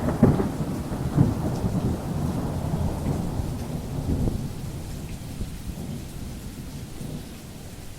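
Rain falling, with a low rumble of thunder that is loudest at the start and fades over several seconds.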